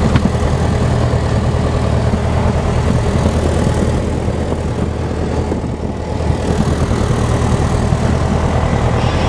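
Light aircraft engine and propeller running with a steady drone, heard from inside the cabin.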